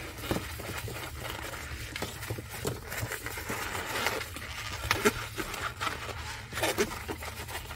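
A 260 latex modelling balloon rubbing and squeaking as it is twisted into bubbles with cloth gloves, in a string of short squeaks and rubs, a few of them louder about five and seven seconds in.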